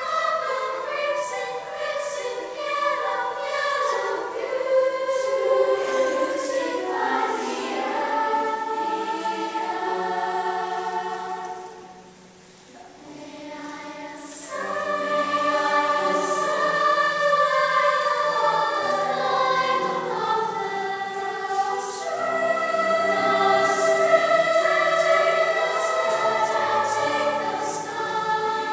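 Children's choir singing. The singing drops to a soft, near-pause about twelve seconds in, then comes back at full strength a couple of seconds later.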